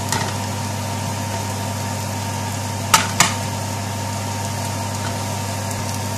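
Steady low mechanical hum in a kitchen, with two sharp clinks just after three seconds in, a utensil knocking on the pan as the spices fry.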